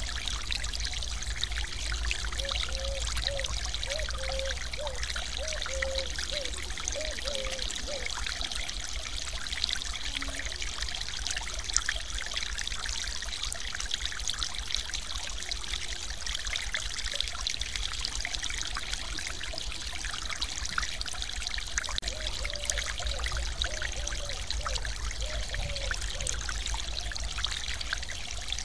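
Mountain-stream waterfall: water pouring steadily over a ledge, a constant splashing rush with a low rumble beneath.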